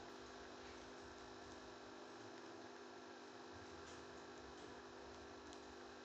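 Near silence with a steady low electrical hum, and a few faint scattered clicks of a small bird's beak husking seeds.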